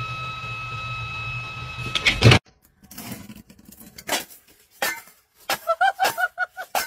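A steady hum with a thin high whine, then a quick clatter of knocks about two seconds in as a cat leaps off a cluttered desk. After that come scattered taps and knocks, and near the end a fast run of short pitched sounds that rise and fall.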